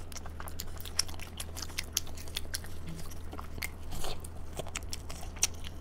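Close-miked wet chewing and biting of a stuffed sheep-stomach bun in oily chili sauce, a steady run of small sharp mouth clicks.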